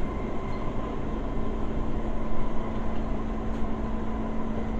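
Cabin noise of a moving Kawasaki-built SMRT C151 metro train: a steady rumble with a steady hum and a higher whine.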